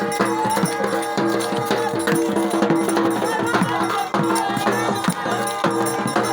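Music with drums and shaker-like rattling over steady held tones.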